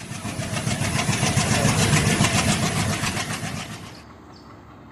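A loud engine-like mechanical sound with a fast, even pulse. It swells and then fades out about four seconds in, giving way to much quieter station background noise.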